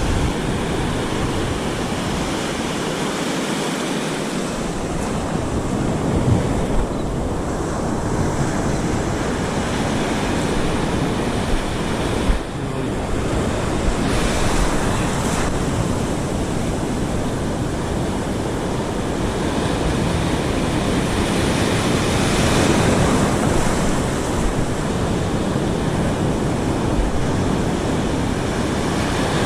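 Ocean surf breaking and washing up the beach in slow swells, with wind rumbling on the microphone.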